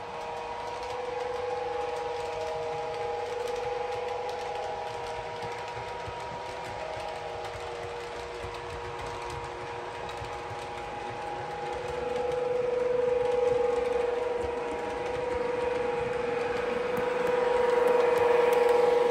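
Model Class 92 electric locomotive with Caledonian Sleeper coaches running on the layout track: a steady motor whine with faint wheel clicks. It gets louder as the train comes close near the end.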